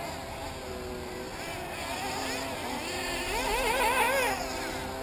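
Small glow-fuel two-stroke engines of 1/8-scale nitro RC buggies buzzing, several at once at different pitches. One engine is throttled up and down again and again, its pitch rising and falling, loudest about four seconds in as it passes.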